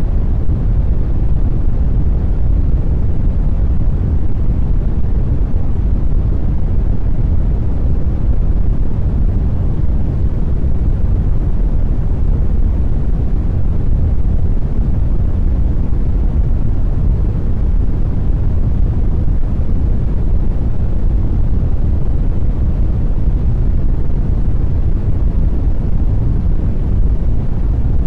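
Airplane wind noise: a steady, low rushing rumble of air with no engine tone, holding the same level throughout.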